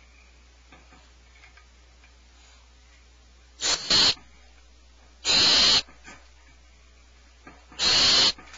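Barn owl giving three harsh, hissing screeches of about half a second each, the first broken in two.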